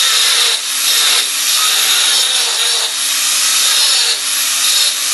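Angle grinder with a 1/8-inch grinding wheel grinding a tack weld on 6-inch schedule 40 steel pipe, feathering the tack's edges so the root pass will tie in. A steady, high grinding with a constant motor hum underneath, dipping briefly a few times.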